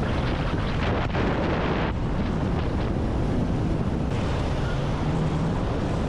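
Wind buffeting the microphone of a handlebar camera on an electric bike riding at high speed: a steady, heavy rushing rumble.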